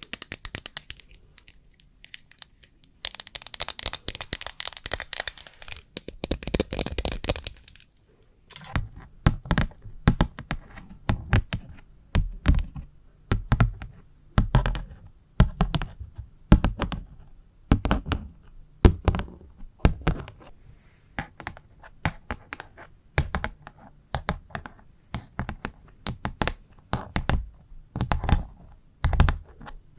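ASMR tapping and scratching on a small handheld fan and a standee clip. Fast scratchy rustling runs for the first several seconds, then gives way at about eight seconds to separate taps and knocks at an irregular pace, a few a second.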